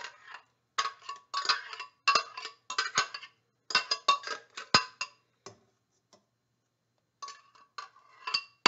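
A spatula clinking and scraping against a glass blender jar as thick beet and carrot puree is worked out of it into a pot. It comes as runs of quick, ringing clinks, with a short pause after the middle.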